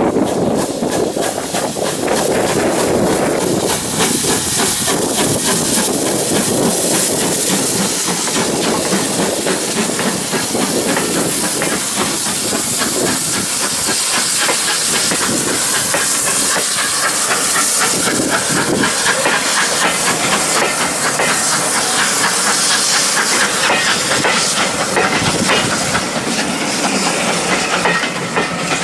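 Steam tank locomotive passing close with steam hissing, followed by its train of coaches clattering over the rail joints with a steady run of clicks.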